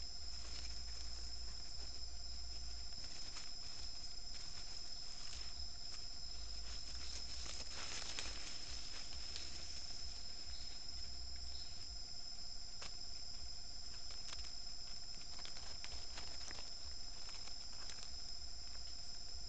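Night insects, crickets among them, trilling steadily and high, with irregular rustling and scratching in dry leaf litter from a nine-banded armadillo foraging at the bait pile, busiest about halfway through.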